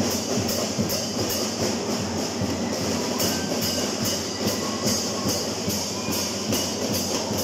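Marching drum and lyre band playing a steady beat on snare and bass drums, with cymbal strokes about two to three times a second.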